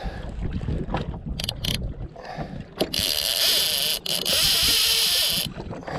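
Overhead fishing reel's drag buzzing as a hooked snapper strips line off the spool, in two runs of about a second each, the second longer, after some knocks of handling. The drag is set loose, so the fish takes line easily.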